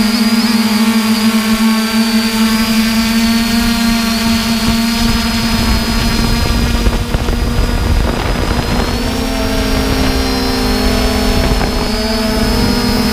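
3DR Iris+ quadcopter's electric motors and propellers humming steadily, heard from the camera on board. A low rumble swells in the middle, and several tones shift higher about nine seconds in as the motor speeds change.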